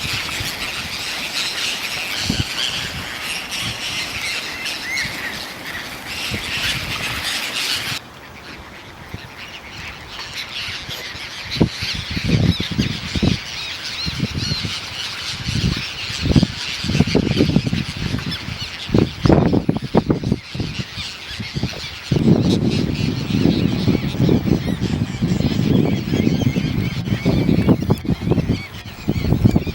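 A flock of waterbirds calling together in squawking, honking chatter. The sound changes abruptly about 8 and 22 seconds in, and low rumbling noise fills the later part.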